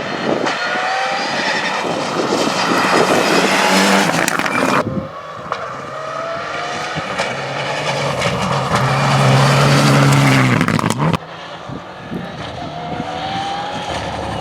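Rally cars at full throttle, engines revving up through the gears, heard in three short shots cut together: the sound changes abruptly about five seconds in and again about eleven seconds in.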